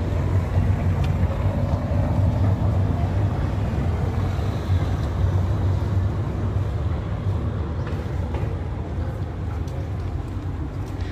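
Steady low rumble of outdoor city street noise, with no single distinct event standing out.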